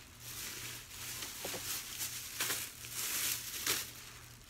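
Plastic shopping bags and packaging rustling and crinkling in several short bursts as items are rummaged through and moved.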